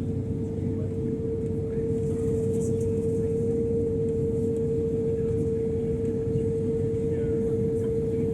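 Steady airliner cabin drone with a low rumble and a constant mid-pitched hum, unchanging throughout.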